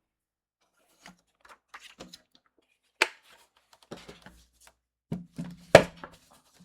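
Cardstock and a paper trimmer being handled on a craft table: light taps and rustles, a sharp click about three seconds in and a louder knock near the end.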